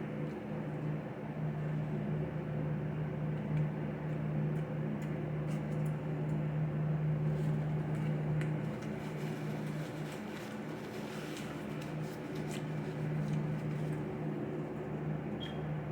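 Steady low mechanical hum, overlaid by faint scattered clicks and mouth noises of chewing.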